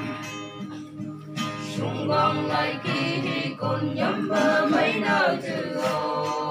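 A small mixed group of men and women singing a Phom gospel song together, with an acoustic guitar played along.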